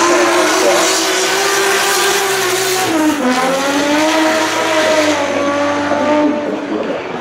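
Drift car's engine held high in the revs as it slides with tyres squealing and smoking; the revs dip briefly about three seconds in and build again. The tyre noise fades near the end as the car pulls away.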